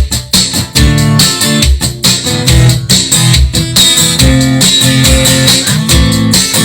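Instrumental music led by guitar, with bass and a steady beat.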